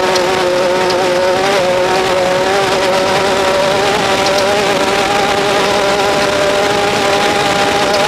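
Off-road race vehicle engine running at steady high revs, a continuous buzzing note that holds nearly one pitch and steps up slightly about a second and a half in.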